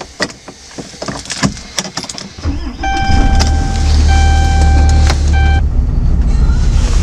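Clicks and knocks inside a Dodge pickup truck's cab, then about two and a half seconds in, the truck's low engine and road rumble comes in loud and steady. A steady electronic tone sounds three times over it, the first two about a second each and the last short.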